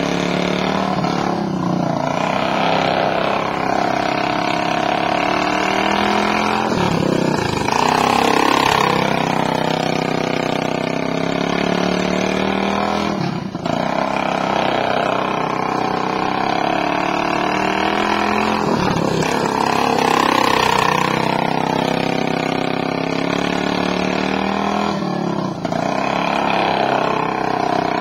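Racing lawn mower engines running hard, the pitch dropping and climbing again about every six seconds as the throttle eases off and opens back up.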